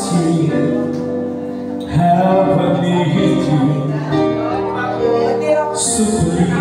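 A man singing through a microphone and PA over instrumental music.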